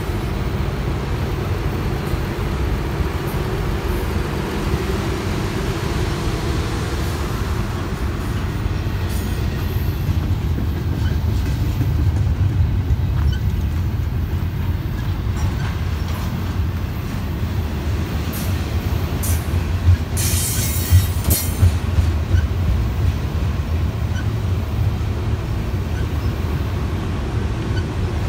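VIA Rail Budd Rail Diesel Car running on the rails: a steady low rumble with wheel-on-rail noise. About two-thirds of the way through comes a short run of sharp, high noises, the loudest moments.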